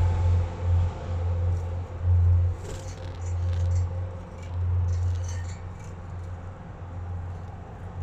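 A loud low hum that swells and fades, with a few faint, short, high chirps from budgerigars scattered through it.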